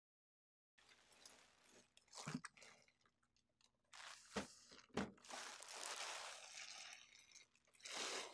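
Clear plastic wrapping bag crinkling and rustling as it is pulled away from around a laser printer, with a few dull knocks as the printer is shifted on the table. It starts after a moment of dead silence.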